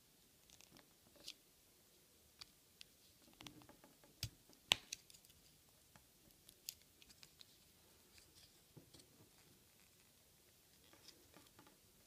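Faint, scattered clicks of a thin metal tool prying the tight plastic scale of a Victorinox Spartan off its rivet studs, with one sharper snap a little before halfway.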